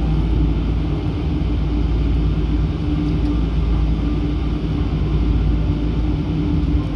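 Boeing 777-300 airliner heard from inside the cabin: a steady, loud low rumble with a constant hum running through it.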